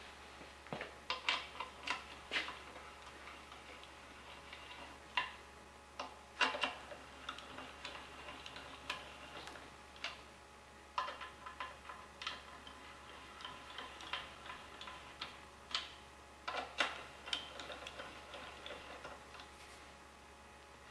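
Hand ratchet clicking in short runs, with pauses between, as the bolts of a transmission bearing support are turned down with a socket on an extension bar.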